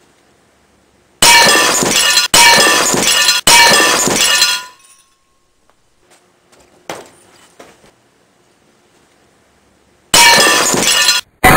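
Stacked stemmed drinking glasses shattering as they are smashed with a toilet paper holder: three loud bursts of breaking glass, each cut off abruptly. A few small clinks follow, then another loud burst of breaking glass near the end that stops suddenly.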